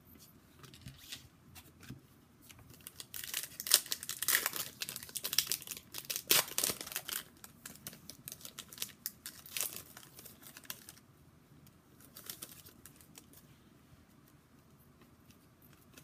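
Foil wrapper of a hockey card pack being torn open and crinkled: dense crackling from about three seconds in, thinning to sparse crinkles after about eleven seconds.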